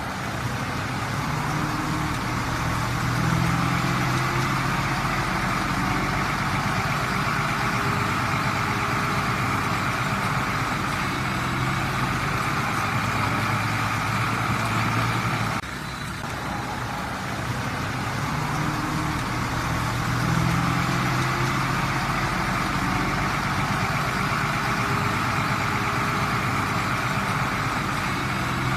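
Komatsu D20P bulldozer's diesel engine running steadily, swelling in pitch and loudness a few times as it takes load. There is an abrupt break about halfway through.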